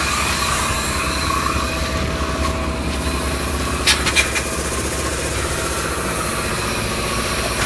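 An engine running steadily with a low, even throb, with a few sharp clicks about four seconds in.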